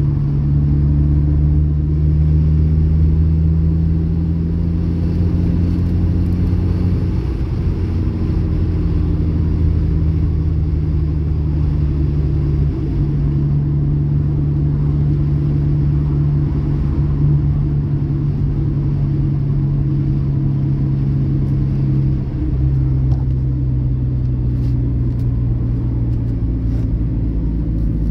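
Manual car's engine running, picked up from down in the footwell: a steady low drone that steps to a new pitch three times as the accelerator is pressed and eased.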